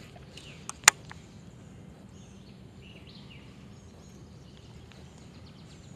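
Baitcasting reel clicking twice, sharply, just under a second in as it is put back in gear after a cast. After that, birds chirp over a steady outdoor background.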